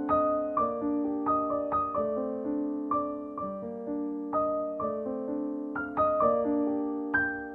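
Background music: solo piano playing a slow melody of struck notes that ring and fade over held lower notes.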